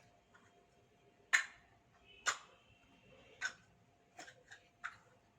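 Six light, sharp clicks and taps at uneven intervals, the first two the loudest, from a soldering iron and a thin wire being pressed and worked against a small circuit board while the wire is being soldered on.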